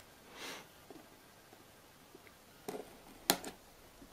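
Quiet handling of a small cardboard processor box: a soft rustle, then a few light taps and one sharp click near the end.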